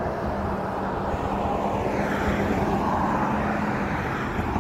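A loud engine passing close by: a rushing noise that grows over the first couple of seconds and then holds, with a steady low hum through it.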